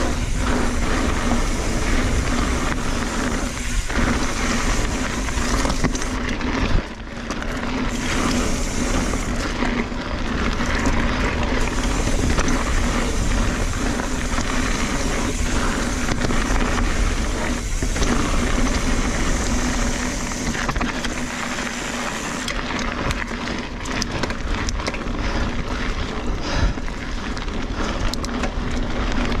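2017 Kona Honzo hardtail mountain bike ridden fast down a dirt singletrack: knobby tyres rumbling and the bike rattling over the ground, with steady wind noise on the chest-mounted camera's microphone. One sharp knock about seven seconds in.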